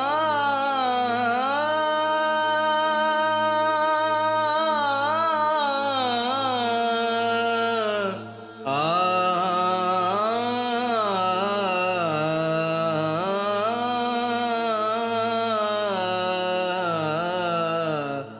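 Music: a wordless, chant-like melody of gliding, held notes over a steady low drone, breaking off briefly about eight seconds in.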